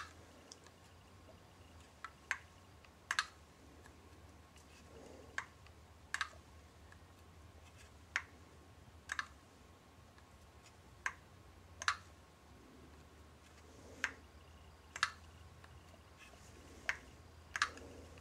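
Handheld infrared thermometer's trigger clicking, pressed and released about a dozen times at irregular intervals, some clicks in quick pairs, over a faint steady hum.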